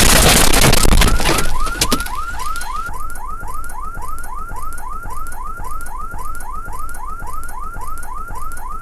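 A loud blast of noise fades out over the first two seconds, and a car alarm takes over, sounding a fast repeating chirp about three times a second.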